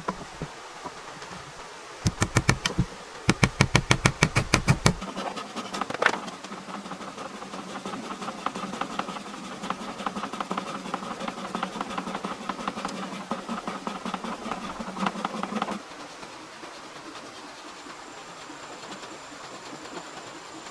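A hand power tool at work: two short bursts of rapid, even rattling, then its motor buzzing steadily for about ten seconds before cutting off suddenly.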